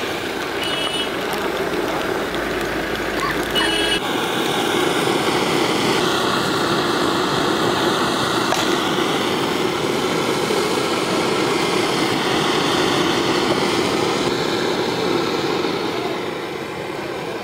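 Steady street traffic noise with running vehicle engines. There are short electronic beeps, like a vehicle's reversing alarm, about a second in and again near four seconds.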